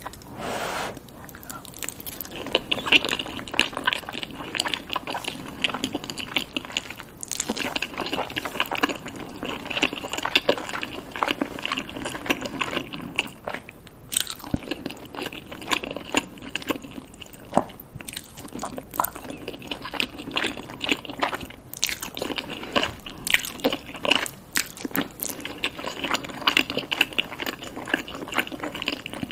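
Close-miked chewing and wet mouth sounds of a person eating soft fries smothered in melted cheese and sauce, with many small sticky clicks and smacks.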